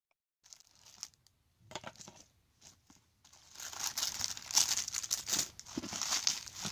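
Plastic bubble wrap crinkling and crackling as a hand handles and unwraps a bubble-wrapped package, in irregular bursts that grow louder and denser about three seconds in.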